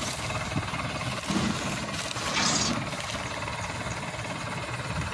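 Diesel engine idling steadily, with a short rush of noise about two and a half seconds in.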